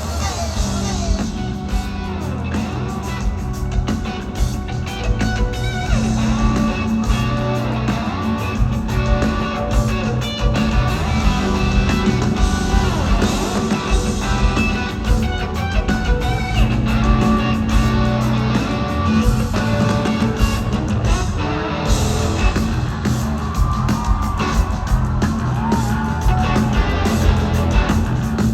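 Live rock band playing: electric guitar and bass over drums, with a voice singing at times.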